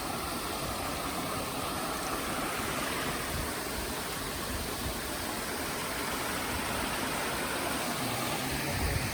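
Steady rushing water of a mountain creek, an even unbroken noise.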